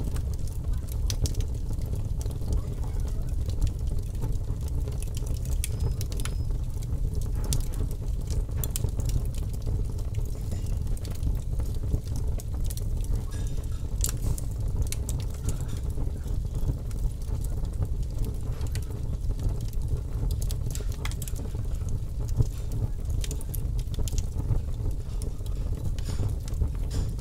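Fire crackling: irregular sharp crackles and pops scattered over a steady low rumble.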